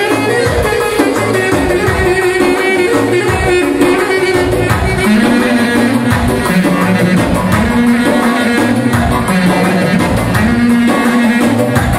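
Loud dance music with a steady beat and a held melody line that steps down lower about five seconds in.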